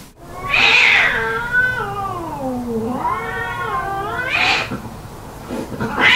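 Cats fighting: a harsh scream, then one long yowl that slides down in pitch and climbs back up, and another short harsh scream about four and a half seconds in.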